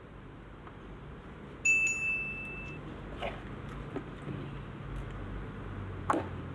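A single bright chime rings once, about two seconds in, holding one clear tone for about a second over a low steady hum; a couple of soft knocks follow.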